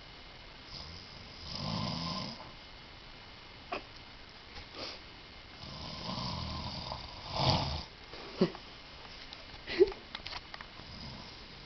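Loud snoring: two long snores about four seconds apart, the second swelling near its end, with a few short sharp sounds in between and after.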